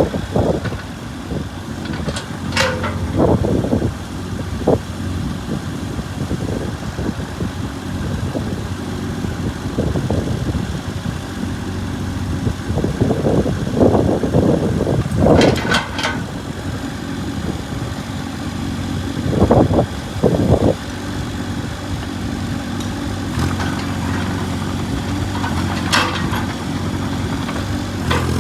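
JCB 8015 mini excavator's diesel engine running steadily, swelling a few times, with a few sharp metallic clanks from the machine.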